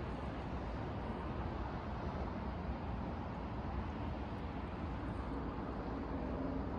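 Steady low rumble and hiss of a freight train approaching in the distance, not yet close; a faint held tone comes in near the end.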